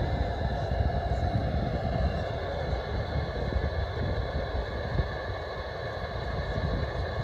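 Low, crackling rumble of a distant Falcon 9 rocket, steady throughout.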